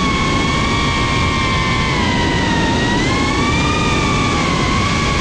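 FPV cinewhoop drone's motors and propellers whining steadily in flight, the pitch dipping a little and rising again as the throttle changes, over a low rushing of wind and prop wash.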